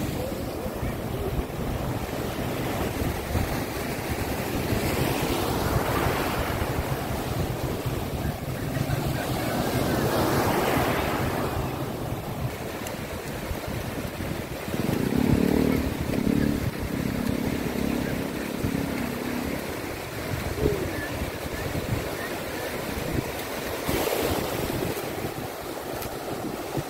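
Small waves breaking and washing up on a shallow, calm shore, with wind buffeting the microphone. The surf swells louder twice, about six and eleven seconds in.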